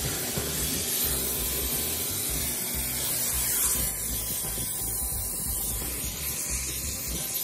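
HART 10-gallon wet/dry shop vacuum running steadily, its nozzle sucking over the car's floor carpet.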